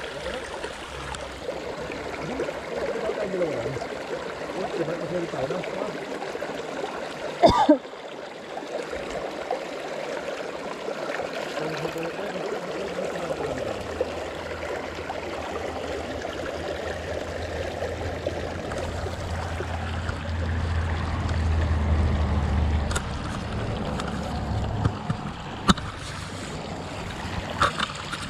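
Shallow rocky creek running and trickling over stones, with hands stirring the water. A single sharp, loud knock about seven and a half seconds in, and a few lighter clicks near the end.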